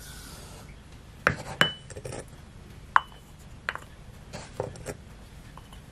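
Sugar pouring softly into a stainless steel saucepan, then about six sharp clinks and knocks of a ceramic measuring cup against the pan, two of them ringing briefly.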